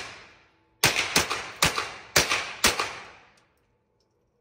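HK MP5 in .22 LR fired five quick shots about half a second apart, each sharp crack echoing off the walls of an indoor shooting range. The shots stop about three and a half seconds in.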